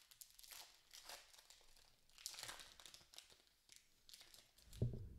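Foil wrapper of an Upper Deck hockey card pack crinkling and tearing as it is peeled open, in faint irregular crackles. A short low thump near the end.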